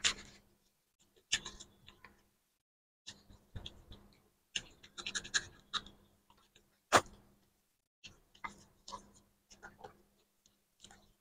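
Eating by hand at close range: irregular wet clicks, smacks and chewing as fingers work rice and curry and food goes into the mouth, with one sharper click about seven seconds in.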